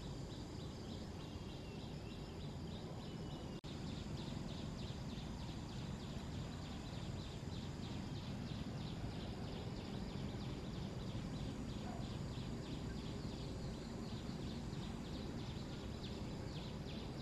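Outdoor forest ambience: insects chirring in a fast, even, high-pitched pulse of about four to five beats a second over a steady low background noise. The sound cuts out for an instant about three and a half seconds in.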